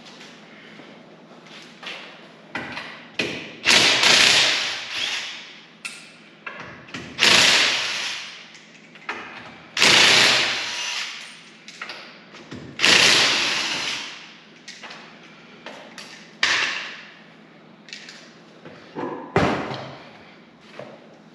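A power tool driving a socket on the lug nuts, run in four bursts of about a second each, every one starting suddenly and trailing off, with lighter clanks and knocks of nuts and tools in between.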